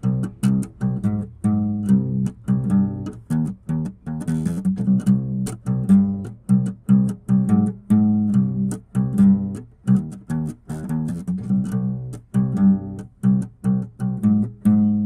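Background music: plucked string instruments over a low bass line, with a steady rhythm of short notes.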